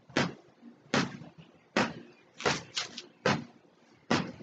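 A volleyball bumped repeatedly off a player's forearms in a double-arm pass, each contact a sharp slap, a little more than one a second, with a quick double hit near the middle.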